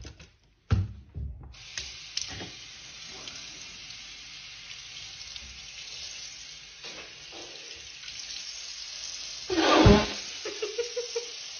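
Kitchen tap running into a sink, with the water starting about a second and a half in and then running steadily. A thump comes just before the water starts, and a louder brief burst comes near the end.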